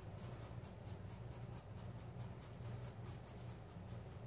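Pencil scratching on sketch-pad paper in quick, even hatching strokes, about four a second, as short contour lines are drawn to shade an edge. A faint steady low hum runs underneath.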